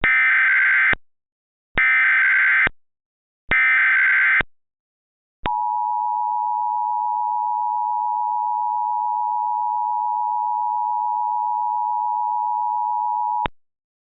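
Emergency Alert System SAME header: three identical bursts of warbling digital data tones, about a second each, encoding a tornado warning. Then a steady, slightly two-pitched attention tone near 1 kHz sounds for about eight seconds and cuts off.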